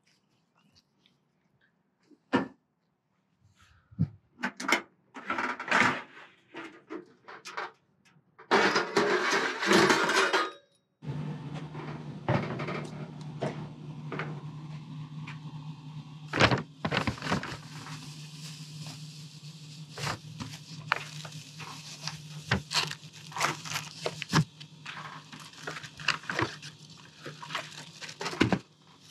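Clicks, knocks and clatter of gear being handled while a two-burner camp stove is set up on a folding table and groceries are unpacked from a paper bag, with a two-second burst of noise about nine seconds in. From about eleven seconds in, a steady low hum runs under the handling noises.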